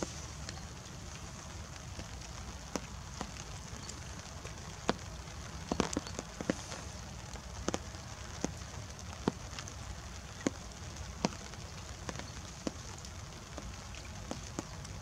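Drops falling in scattered, irregular ticks, several in quick succession around the middle, over a steady low outdoor rumble.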